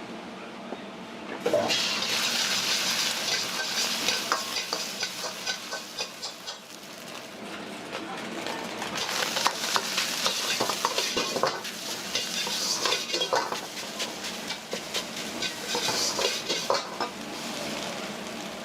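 Food sizzling in hot oil in a wok, starting suddenly about a second and a half in, with a metal ladle or spatula clacking and scraping against the wok as it is stirred and tossed. The sizzle eases for a couple of seconds midway, then builds again.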